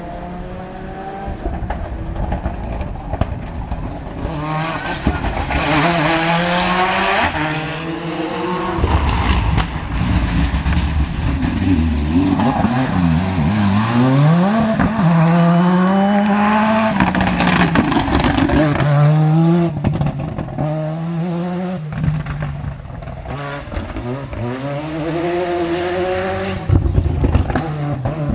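Rally car engine revving hard and climbing through the gears, its pitch rising then dropping back at each shift, several times over as the car approaches and goes past. It is loudest around the middle.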